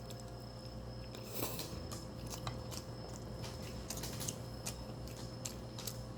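Close-miked mukbang eating sounds: a person chewing a mouthful of kimchi fried rice and egg, with a string of small wet mouth clicks and a louder bite or utensil noise about a second and a half in.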